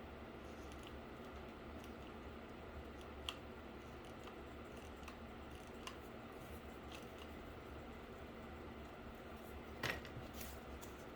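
Quiet handling noises from craft work on a cardboard PC case: a few small scattered clicks and taps over a steady low room hum, with one louder short crackle near the end.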